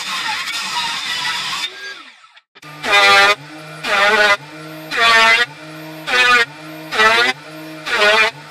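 Table saw cutting through a wooden board for about two seconds. After a short pause, a loud horn-like tone starts and repeats about once a second over a steady low hum; it is louder than the saw.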